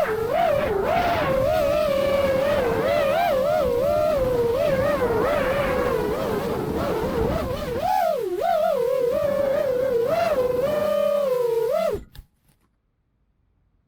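FPV quadcopter's brushless motors whining, the pitch swooping up and down quickly with the throttle. The sound cuts off abruptly about twelve seconds in, leaving near silence.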